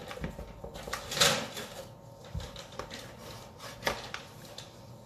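A knife cutting through a baked quiche in a metal baking tray, the blade scraping and knocking against the tray in short irregular strokes, loudest about a second in.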